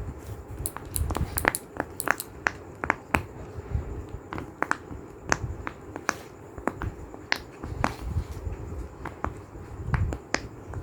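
Silicone push-pop fidget toys being popped fast in a race, an uneven string of sharp little pops, about two or three a second.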